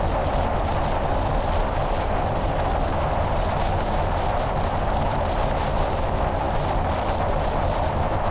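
Steady rush of wind and road noise from a car driving at speed, picked up by a camera mounted on the car's hood, with a deep rumble underneath.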